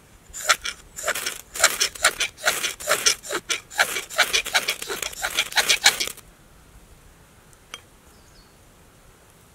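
Knife scraped hard along a ferrocerium fire steel to throw sparks into a tinder bundle, in quick rasping strokes about three a second for roughly six seconds, then stopping once an ember has caught.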